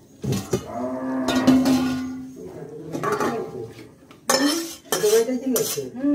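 A steel spatula scraping and clanking against a metal kadai as fried vegetables are tipped out of it into a steel pot, with a brief metallic ring early on and further clatter near the end.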